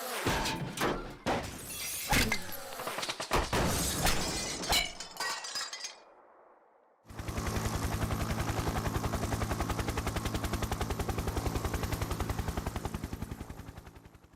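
Sound-effect sequence: about six seconds of crashes and shattering, breaking impacts. After a short pause comes a fast, even mechanical pulsing over a low steady hum, which stops abruptly near the end.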